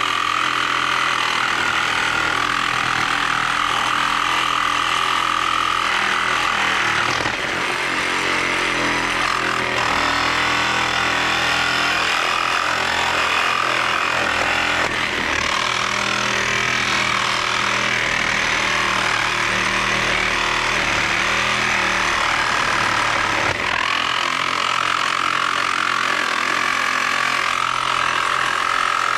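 DeWalt 20-volt cordless reciprocating saw running steadily without a break, a cheap general-purpose 6-inch blade cutting through steel decking screws flush under a 2x6, metal on metal.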